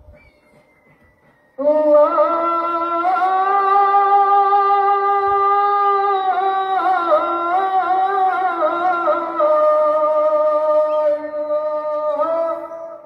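A muezzin's solo male voice chanting the adhan, the Islamic call to prayer. After a short pause, one long held phrase begins about a second and a half in, with ornamented melodic turns through the middle, and ends near the close.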